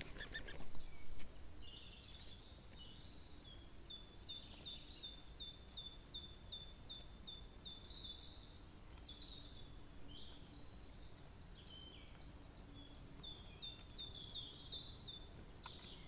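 A small songbird singing in the background: two runs of quickly repeated notes alternating between two high pitches, with scattered chirps between them. A few sharp knocks come about a second in.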